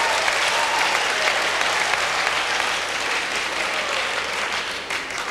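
Large audience applauding, dense steady clapping that begins to die down near the end.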